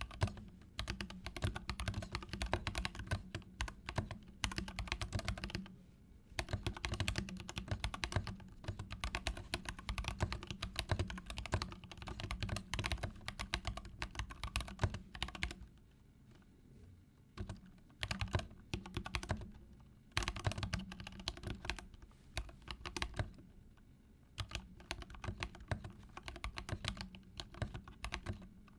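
Typing on an Epomaker GK87 custom mechanical keyboard with pre-lubed Akko CS Vintage White switches: fast runs of key clicks broken by a few short pauses. Its stabilizers are band-aid modded and lubed with dielectric grease.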